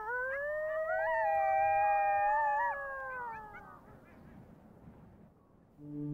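Several coyotes howling together: overlapping long calls at different pitches that rise and then slide slowly down, fading out about four seconds in.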